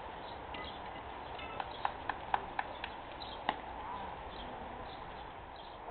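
Open-air background hiss with a quick run of five or six sharp clicks and knocks about one and a half seconds in, and one more knock about a second later.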